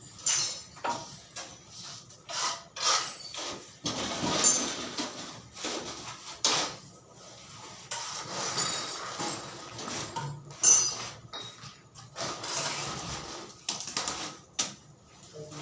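Irregular knocks, clatters and scraping noises from manual construction work with tools and materials, with a few sharper knocks standing out.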